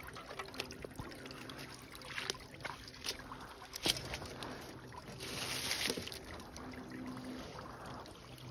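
Wire cage trap rattling and knocking as it is handled and levered with a kayak paddle, with a few sharp clanks, the loudest about four seconds in, and a stretch of rustling about five seconds in.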